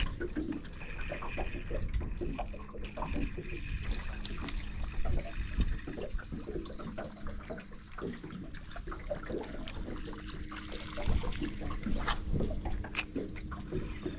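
Water lapping and trickling against a small aluminium boat's hull, with scattered light ticks and knocks.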